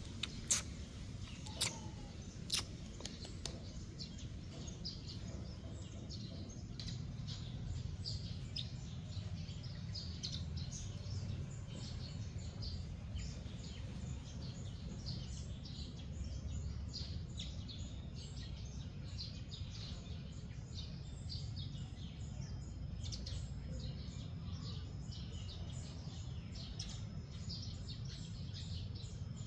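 Small birds chirping in quick, overlapping calls over a steady low background rumble, with three sharp clicks in the first few seconds.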